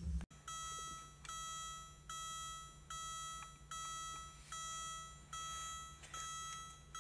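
Porsche 944's dashboard warning chime beeping over and over with the ignition on, a short high electronic tone a little more than once a second.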